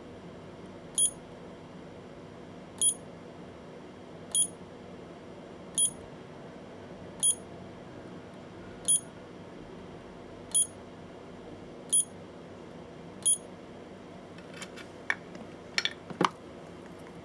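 Battery spot welder beeping about every one and a half seconds, nine short high beeps, followed near the end by a quick run of sharp snaps as it welds a connection onto an 18650 lithium-ion cell.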